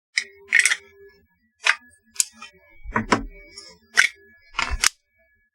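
Sharp plastic clicks and knocks, about seven in all with two heavier thumps, from a pistol magazine being handled in a homemade plastic magazine holster.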